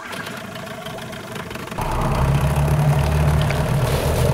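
Yamaha 15 hp outboard motor running against a 3D-printed polycarbonate propeller in a water test tank, with water churning. The engine gets louder and deeper about two seconds in as it is throttled up.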